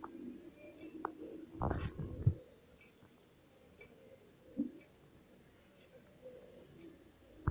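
A cricket chirping steadily in a rapid high pulsing, about six pulses a second, with a few soft knocks about two seconds in.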